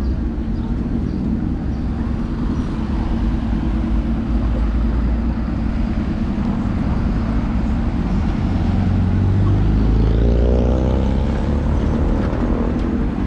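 Town-centre street traffic: engines of passing cars and a bus rumbling steadily, swelling to the loudest about ten seconds in as a vehicle passes close.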